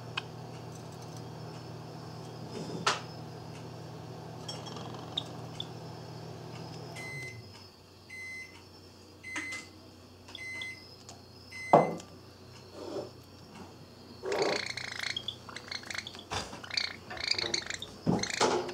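A household appliance hums steadily, stops, and beeps about five times. Then, in the last few seconds, a Java sparrow gives a rapid series of harsh, scolding calls, the sound it makes when angry at its komatsuna leaf.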